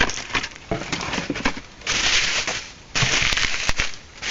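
Plastic toy packaging crinkling and crackling as it is handled: a few sharp clicks, then two longer bursts of crackle about two and three seconds in.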